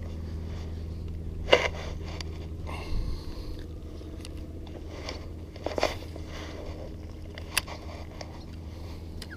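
Handling noises from a spinning rod and reel during a cast and retrieve: a sharp swish-click about one and a half seconds in, then scattered clicks and scrapes over a steady low hum.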